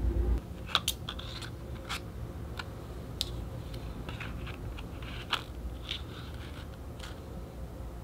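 Scattered small clicks and taps of a plastic phone case and its magnetic card wallet being handled, with two sharper clicks, one near the start and one about five seconds in. A low rumble stops just after the start.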